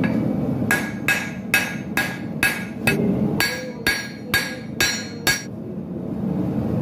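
Hand hammer striking a red-hot mild-steel bar on an anvil: about eleven blows, roughly two a second, each with a short metallic ring, stopping a little over five seconds in. A steady low rumble runs underneath.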